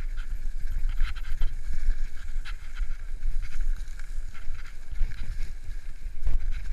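Full-suspension mountain bike ridden fast down a leaf-covered dirt trail: tyres rolling over dry leaves and scattered short clicks and rattles from the bike. Strong wind rumble on the microphone underneath.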